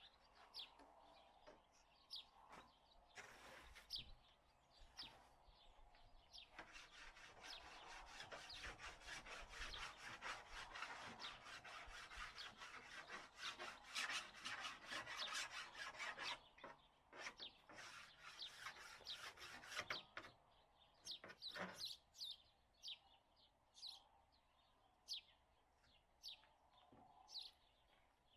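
Fast, even rasping strokes of a tool scraping a workpiece, running for about ten seconds through the middle. Birds chirp in the quieter stretches before and after.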